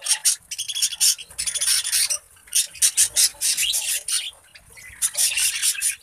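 A flock of budgerigars chattering: a dense, scratchy run of quick high chirps and squawks, easing off briefly about four seconds in.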